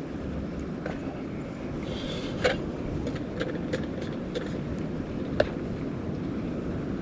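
Strong wind blowing steadily over the microphone, with sharp snaps of tent fabric being buffeted, the loudest about two and a half and five and a half seconds in.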